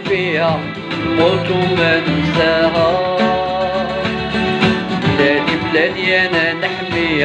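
A man singing while strumming and picking a bowl-backed mandolin-type lute, the plucked strings and voice carrying a folk melody together.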